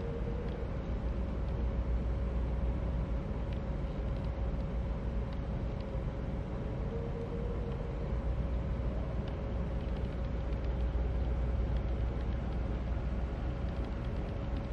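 Steady low background rumble with a thin constant hum, unchanging throughout, with a few faint ticks.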